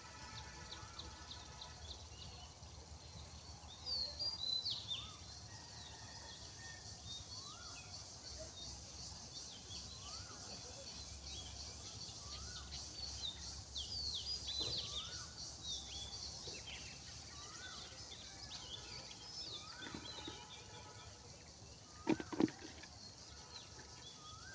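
Birds chirping and calling, many short repeated chirps and rising whistles, louder in clusters a few times, over a faint steady outdoor background. A brief louder call sounds near the end.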